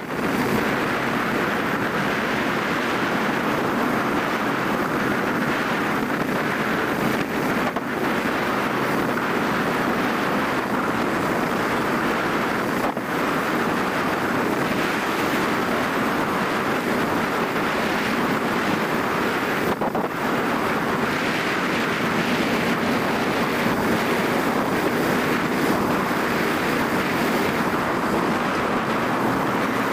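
Vehicle driving steadily at speed over a flat sand track: a constant rush of wind across the microphone mixed with driving and tyre noise.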